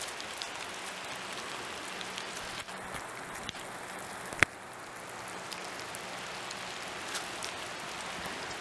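Steady rain falling, an even hiss, with one sharp click about four and a half seconds in.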